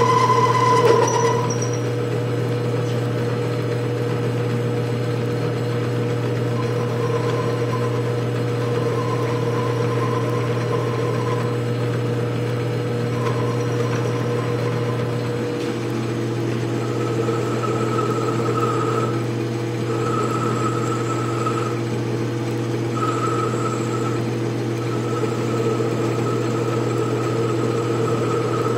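Atlas 618 bench metal lathe running steadily with a constant motor hum while a ball-turning attachment cuts a rounded knob, with a higher whine from the cut that comes and goes.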